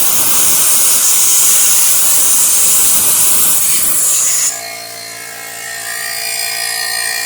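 Air duster blowing a steady hissing blast of air into a dusty PC case, cutting off suddenly after about four and a half seconds. A quieter steady whir with several fixed tones follows.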